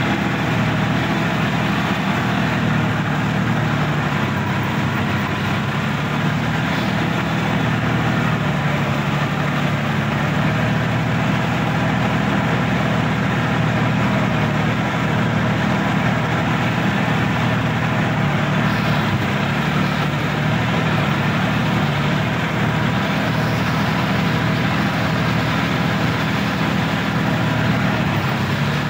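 Sonalika DI-50 RX tractor's diesel engine running steadily, heard from the driver's seat, as the tractor drives through a flooded, muddy rice paddy.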